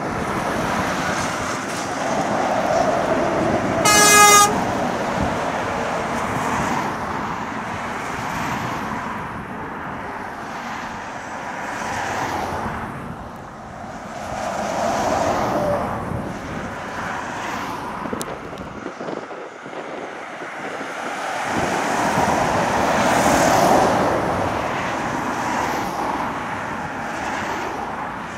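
Traffic passing one vehicle after another on a fast main road, lorries and cars swelling up and fading away, with a single short horn toot about four seconds in.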